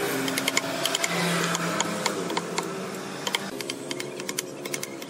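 Rapid, irregular light taps and clicks of hand carving tools working wood, several a second.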